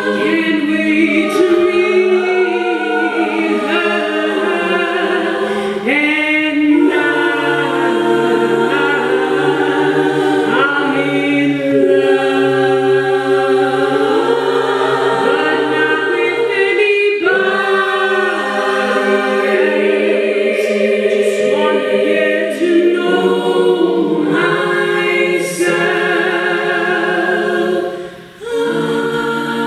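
All-female soprano-alto a cappella group singing into microphones: many voices holding sustained chords with a low vocal bass line beneath, all of it amplified. The sound briefly drops out a little before the end.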